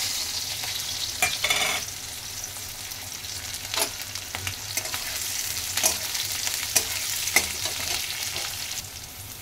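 Chopped onion, with green chilli, garlic and cumin seeds, sizzling in hot mustard oil in a kadhai, stirred with a metal spatula that scrapes and clicks against the pan now and then. The sizzle eases a little near the end.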